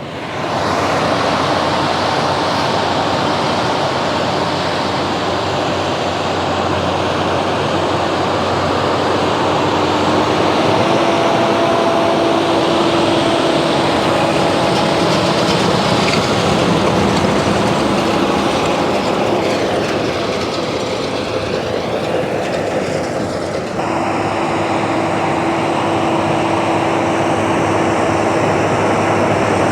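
Tractor and hay baler working in the field: a steady loud mechanical running noise with a few held tones, which shifts briefly about two-thirds of the way through as the machine moves past.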